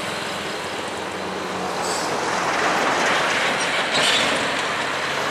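Road traffic with a heavy truck passing close: engine drone and tyre noise swell to a peak about halfway through, then ease off.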